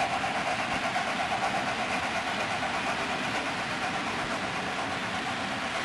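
Model trains running on the layout's track: a steady whirring and rumbling of small electric motors and wheels on rail.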